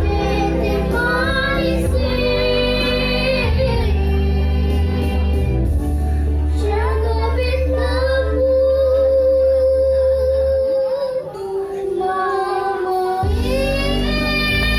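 A young girl singing with musical accompaniment, holding long notes; one note near the middle is held for about four seconds. The low accompaniment drops out for a couple of seconds after that and then comes back in.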